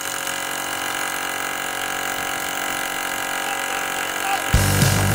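Milwaukee M18 FUEL SDS-MAX cordless rotary hammer drilling a masonry bit into a concrete sleeper, a steady mechanical run. Near the end it turns louder and deeper, with a heavy pounding added.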